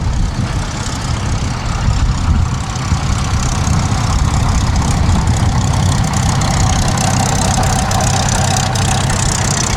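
Hawker Hurricane's Rolls-Royce Merlin V12 engine running steadily at low power.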